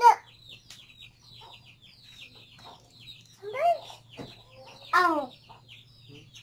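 Chickens: a steady run of short, high peeps, with three louder, arching calls standing out near the start and twice more past the middle.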